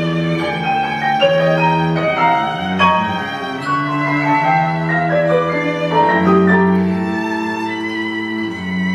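Chamber ensemble playing contemporary classical music, violin and cello to the fore: a held low note changes pitch a few times under several overlapping, shifting higher lines.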